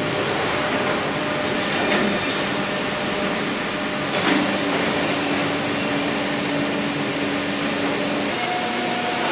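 Woodworking machinery running with a loud, steady whirring noise. A steady hum sets in about four seconds in, and the sound changes about eight seconds in.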